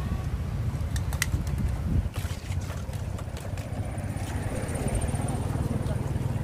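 A metal spoon clinking in a stainless-steel mixing bowl as a spicy salad is tossed, a few sharp clinks standing out, over a steady low rumble.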